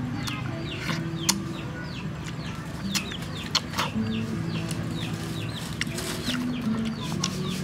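Chickens calling: a steady run of short, high, falling cheeps, several a second, over low clucking, with a few sharp clicks.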